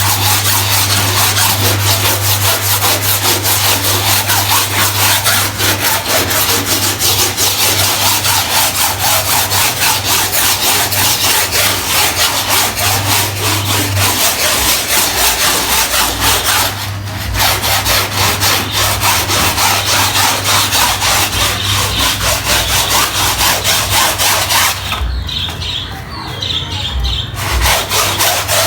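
A stiff brush scrubbing a soaked, dirty carpet in rapid, even back-and-forth strokes, with a steady low hum underneath for the first half. The scrubbing eases briefly twice, the second time near the end.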